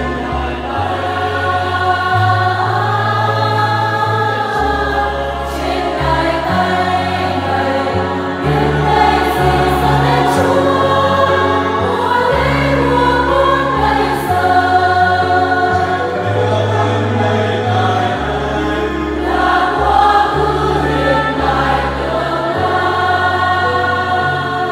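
A Catholic parish choir, mostly women's voices, singing a hymn in harmony, with sustained low bass notes beneath the voices that change every few seconds.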